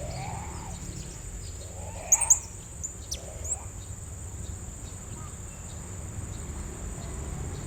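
Blue-crowned hanging parrot (serindit) calling: a quick cluster of short, sharp, very high chirps about two seconds in, then a few single chirps. A steady high insect drone runs underneath.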